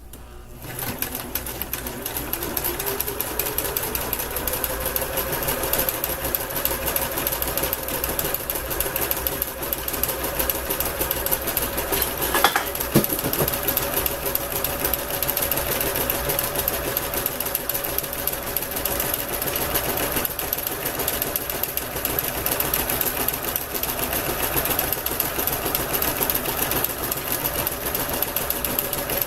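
Kenmore entry-level sewing machine running a zigzag stitch along the edge of cross stitch fabric, the stitching that keeps the edge from fraying. It starts just after the beginning, speeds up over the first few seconds, then runs steadily, with a couple of sharp clicks about halfway through.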